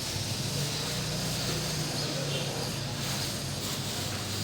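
Steady background noise with a low hum.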